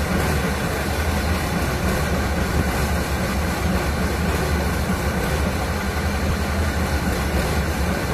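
Heavy engine of a tracked amphibious vehicle running steadily at idle, a deep even hum with no revving.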